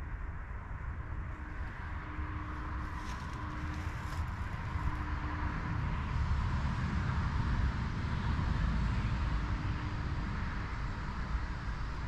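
Distant road traffic: a low steady rumble that swells around the middle and eases slightly toward the end.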